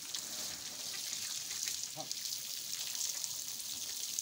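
Water from a hose spraying in a steady hiss onto a cow's wet hide and splashing onto the muddy ground. A brief voice is heard about halfway through.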